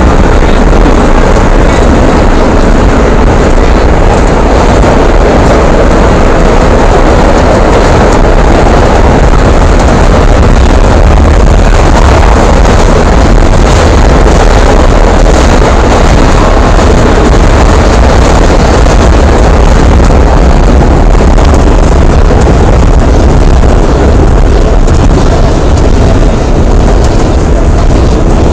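Vintage subway train running at speed, heard from inside the car: a loud, steady rumble with no break.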